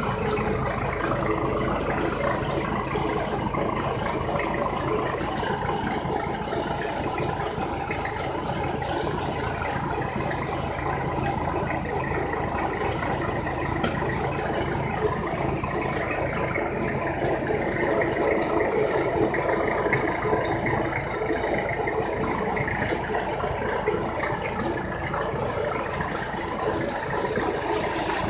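IMT 558 tractor engine running steadily under load, driving a high-speed sickle-bar mower with a 1.65 m cut through tall grass.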